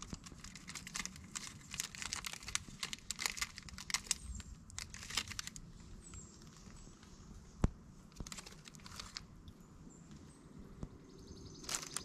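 Crinkling and crackling made of many quick clicks, dense through the first half and sparser later, with one sharp single click about two-thirds of the way through.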